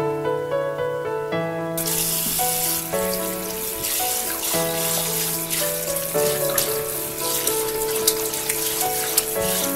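Tap water running into a stainless-steel sink with splashing as a bamboo shoot is washed under it, starting about two seconds in. Background music plays throughout.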